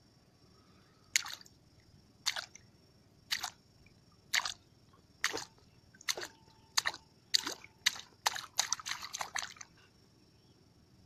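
Water splashing in short, sharp strikes, about one a second at first, then coming quicker, and stopping about a second before the end.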